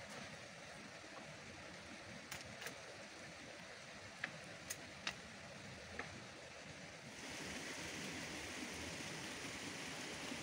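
Dry branches burning in the open: a steady rushing hiss with a handful of sharp crackles, the hiss growing louder about seven seconds in.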